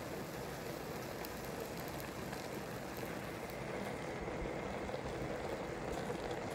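Raspberries heating in their own juice in a stainless steel pot on a gas stove: a steady hiss with faint fine crackling.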